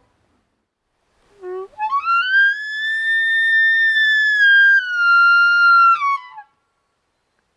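Elk bugle: a low note about a second in climbs steeply into a long, high whistle that holds, steps down a little, and breaks off downward near the end.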